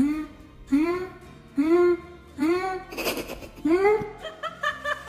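A cat meowing over and over in short calls that rise and fall in pitch, about one a second. Near the end comes a quick run of short, higher notes.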